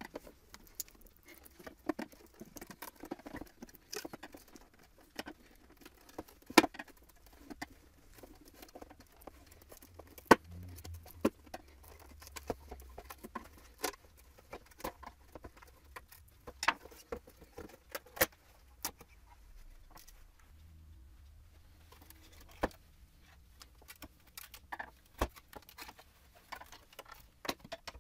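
Irregular clicks, taps and scrapes of a steel screwdriver prying at the plastic housing and lens of a Chevrolet Avalanche halogen headlight, a few sharper knocks standing out from the rest.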